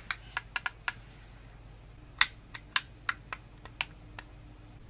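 Plastic buttons on an Asus ROG gamepad clicking as they are pressed: a quick run of about five clicks, a pause, then about eight more from about two seconds in, the first of these the loudest.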